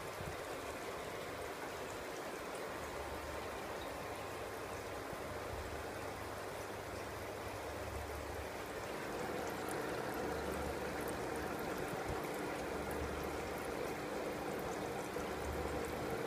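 Steady bubbling, trickling water in a crayfish tub. About nine seconds in the water grows a little louder and a faint steady hum joins it.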